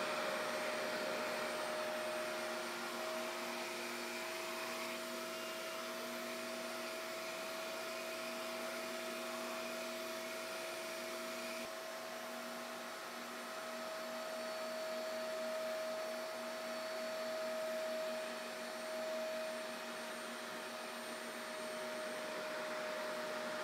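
Revair reverse-air blow dryer running on high suction: a steady motor whine over the rush of air drawn into the nozzle as a section of hair is held inside it, with the level dipping slightly a couple of times.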